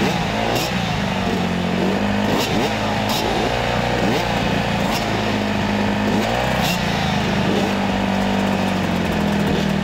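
Several motocross bikes idling together at the starting gate, their riders blipping the throttles in repeated short revs that rise and fall in pitch.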